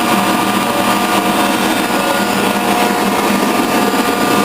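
Metal lathe and metal shaper running together, a steady machine hum with a few held tones. The shaper is just started and warming up.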